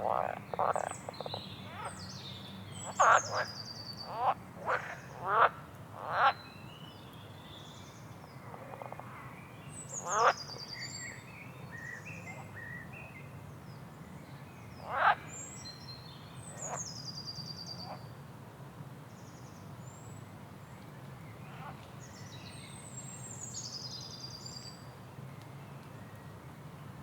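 Frogs croaking in short, loud calls, clustered in the first six seconds with two more later, while birds chirp higher up in quick falling whistles. A steady low hum runs underneath.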